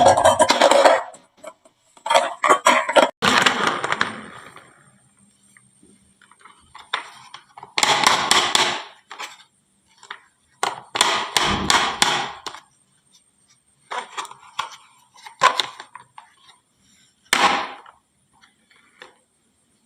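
Glass marbles clacking and rattling down a HABA wooden marble slope and dropping into toy trucks, in several bursts of quick clicks and clatter with short quiet gaps between them.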